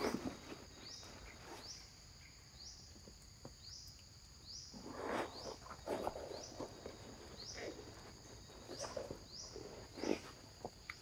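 An insect drones steadily on one high pitch, with a rising chirp repeating about once a second. Scattered rustling and shuffling noises come through under it, loudest near the start, about halfway through and near the end.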